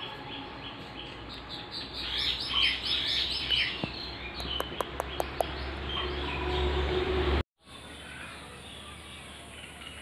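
Indian ringneck parakeets chirping and chattering, busiest a couple of seconds in, with a few sharp clicks around the middle. The sound cuts out for a moment about seven seconds in, then softer calls carry on.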